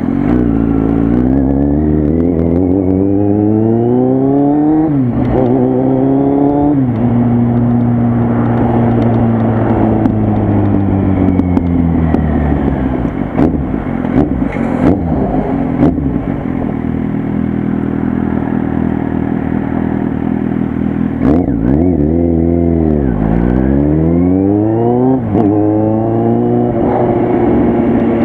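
Kawasaki Z800 inline-four motorcycle running loud through its exhaust while being ridden. The revs climb and drop sharply twice in the first seven seconds as it shifts up, then hold a steady cruise. They fall away around twenty-one seconds in as it slows, then climb again through two more upshifts.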